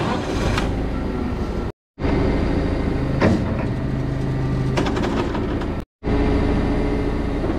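Caterpillar forklift engine running steadily, with a single clunk about three seconds in; the sound breaks off for an instant twice.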